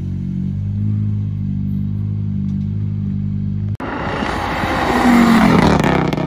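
A rally car's engine running steadily at low revs. An abrupt cut comes nearly four seconds in, then another rally car approaches under hard acceleration and passes close by, its engine note rising, then falling away.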